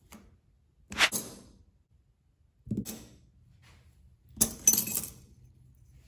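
Small metal knife parts and hardware clinking as they are handled, in three brief bursts, the last the busiest.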